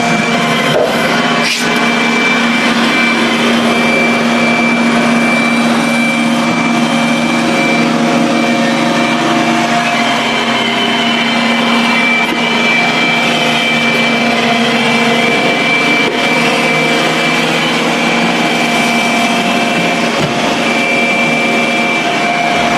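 Roomba Combo j7+ robot vacuum running, a steady whirring hum with a thin high whine, and two light knocks about a second in.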